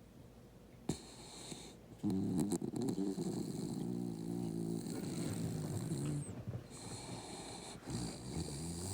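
A sleeping beagle-corgi mix dog snoring: quiet at first, then from about two seconds in a long, low snore lasting about four seconds, with another snore starting near the end.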